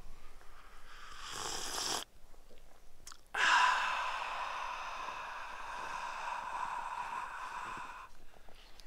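A man slurping hot tea from a thermos cup, the slurp rising and cutting off suddenly, then after a short pause a long breathy, satisfied 'aaah' held for about four seconds and fading slowly.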